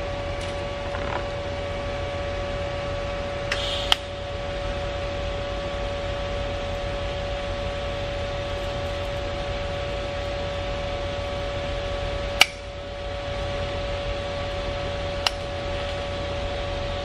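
TIG welder in use on a small stainless-steel fitting: a steady electrical hum from the machine, with a brief crackle and sharp click a few seconds in as the arc is struck, and two more sharp clicks later on.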